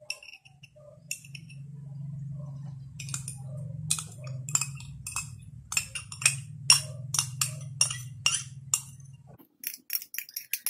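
Metal spoon clinking and scraping against a small drinking glass while stirring a sauce mixture and scraping it out into a bowl, the clinks coming faster from about three seconds in, with a quick run of clinks near the end. A low steady hum runs underneath and stops shortly before the end.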